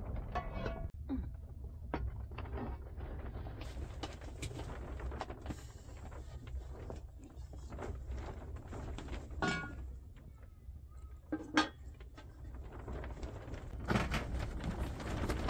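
Occasional knocks and clinks of aluminium basins and a pot lid being handled as food is moved about, over a low steady rumble.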